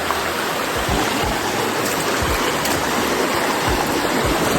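Steady, loud rush of falling water by a water wheel, with a few brief low thuds.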